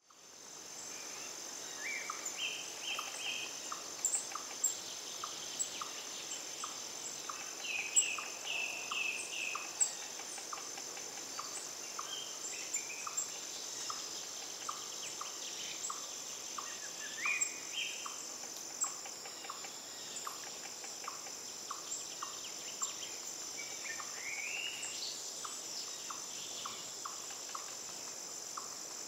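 Forest ambience: a steady high insect drone with a regular ticking call repeating just under twice a second, and scattered short bird chirps and rising whistles throughout.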